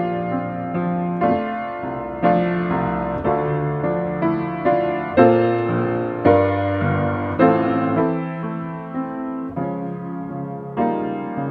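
Piano music: a slow, gentle piece of chords struck roughly once a second and left to ring and fade.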